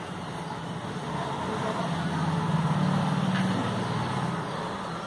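A motor vehicle passing by: a low engine hum that swells to its loudest about three seconds in, then fades.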